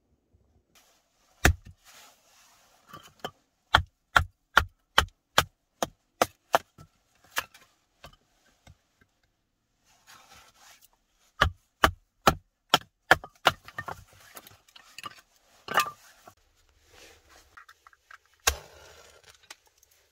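Sharp wooden knocks in two quick runs, about two to three a second, as a knife blade is driven down through a small stick of dry wood to split kindling. Near the end one louder knock is followed by a short rasp and hiss, a match being struck.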